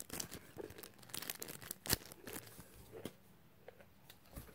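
Clear plastic squishy packaging crinkling in the hands, a run of irregular faint crackles with one sharper crackle about two seconds in.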